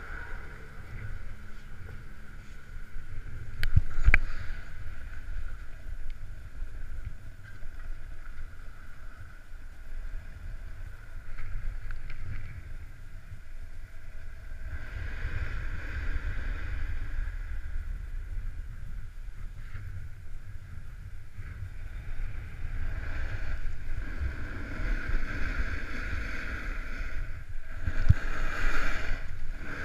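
Wind rumbling on a body-worn action camera while snowboarding down groomed piste, with the board's base and edges hissing and scraping over the snow, louder in the second half. A sharp knock about four seconds in.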